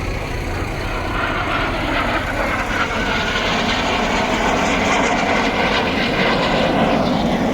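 Display aircraft in an air show flying overhead, a steady engine rush that grows gradually louder.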